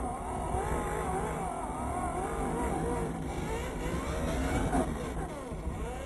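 Onboard sound of a 1:10 scale RC off-road truck: its motor whines, the pitch rising and falling again and again with the throttle, over a low rumble from driving on dirt.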